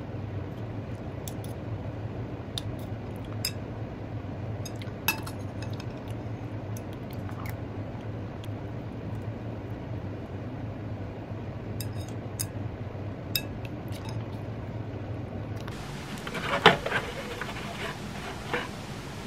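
Metal chopsticks and a spoon tapping and scraping on a ceramic plate while grilled fish is picked apart: sparse light clinks over a steady low hum. Near the end, a louder sharp knock and rustling as a cardboard box and cable are handled.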